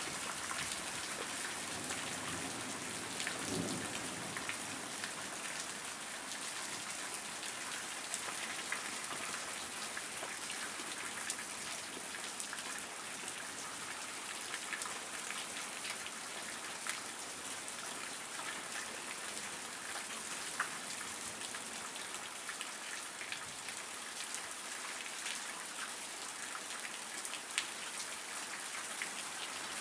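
Steady rain falling on grass and pavement, an even hiss with scattered sharper drop ticks.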